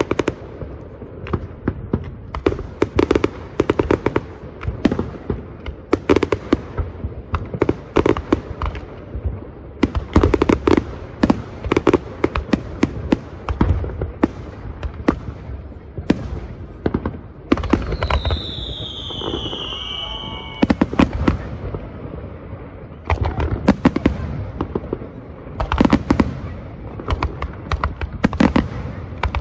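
Fireworks display: aerial shells bursting in a rapid, irregular barrage of bangs and crackles. Past the middle, a whistle falls in pitch for about two seconds.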